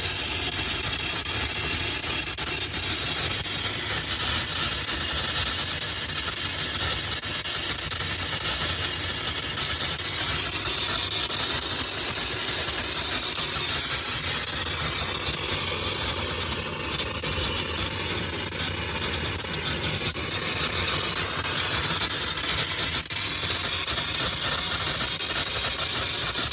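Steady hiss and low rumble in the cab of a 2021 Ford F-150 PowerBoost, even and unbroken, with no loud pop.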